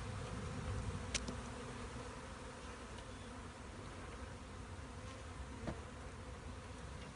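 Honey bees from a wild hive that is being cut open buzzing steadily as a swarm, with a faint click about a second in and another later.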